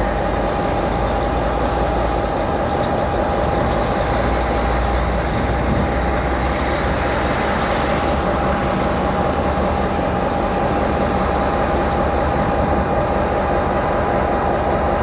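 TRA diesel-electric locomotive R157 idling while standing still: a steady low rumble with a constant whine over it.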